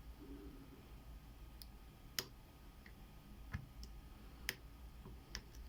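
A handful of faint, irregular clicks from a lock pick working the pin stack inside a Yale Y110/35 brass padlock's keyway.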